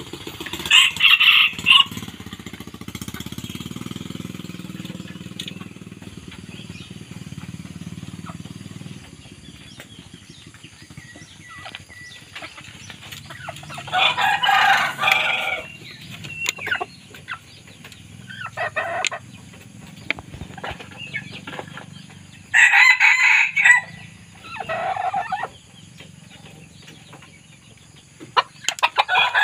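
Red junglefowl in a cage calling: about six loud crows and clucks of a second or two each, spaced out over a low steady background hum.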